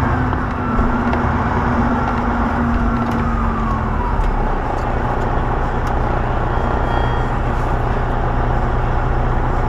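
Semi truck's diesel engine running steadily, heard from inside the cab; a humming tone slides lower and fades out about four seconds in as the engine note eases off. The truck's turbocharger has failed, so no turbo whistle is heard.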